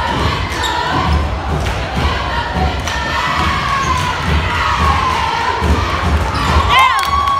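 A basketball being dribbled on a hardwood gym floor, about two bounces a second, under the chatter of a crowd in the stands. Near the end a long, drawn-out shout rises, holds and then trails off.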